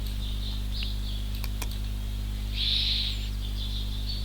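Steady electrical mains hum with a faint high hiss, a couple of soft clicks in the first half, and one short high-pitched chirp about two and a half seconds in.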